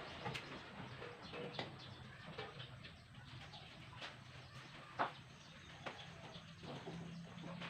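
Faint farmyard sounds with birds calling, likely including chickens, and scattered light clicks and knocks, the sharpest one about five seconds in.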